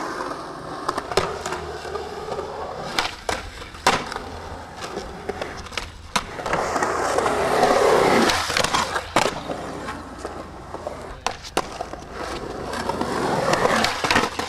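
Skateboard wheels rolling over concrete, the rolling rising and falling, broken by several sharp clacks of the board and trucks popping and hitting the ground and ledges.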